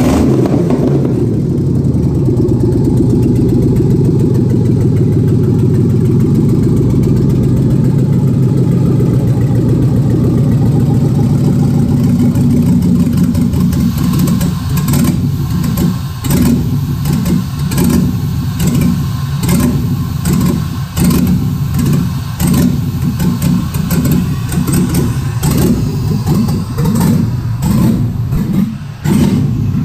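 A 5.3-litre LS V8 engine running on the stand, without its O2 sensor and mass airflow sensor connected. It runs steadily for the first half, then its level rises and falls unevenly through the second half.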